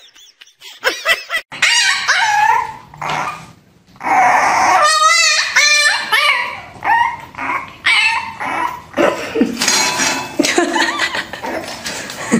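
French bulldog puppy yipping and whining, a long run of short high calls that bend in pitch.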